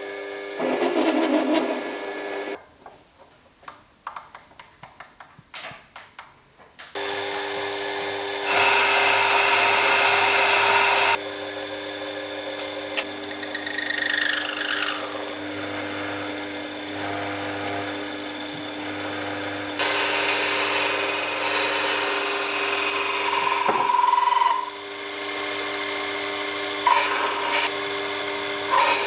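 Small electric power tool, such as a drill, running in a workshop with a steady motor hum. It gets louder and changes as it cuts: a high whine appears for a few seconds later on. Before it starts there are a few seconds of light clicks and taps.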